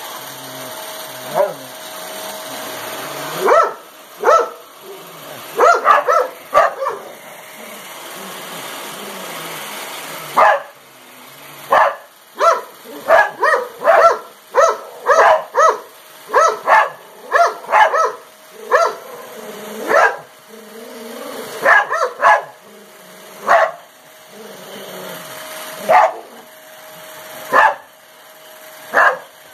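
Dog barking again and again at a running upright vacuum cleaner: scattered single barks, with a quick run of about two barks a second in the middle. The vacuum's motor hums steadily underneath.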